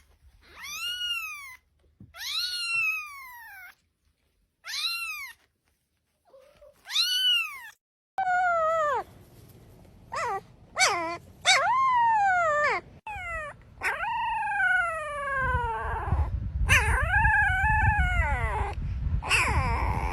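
Domestic cat meowing over and over. First come a few short, high-pitched meows with silences between them. From about eight seconds in, a run of lower, falling meows follows in quick succession over a low rumble that grows louder near the end.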